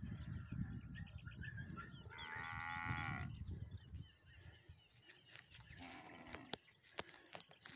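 A cow moos once, about two seconds in, for just over a second. A low rumble fills the first half, and faint bird chirps and a few clicks follow.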